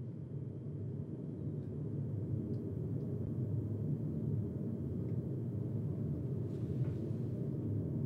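Four 12 cm PC case fans running, their low rushing air noise growing louder over the first few seconds as the speed potentiometer on the PWM regulator is turned up, then holding steady at full speed.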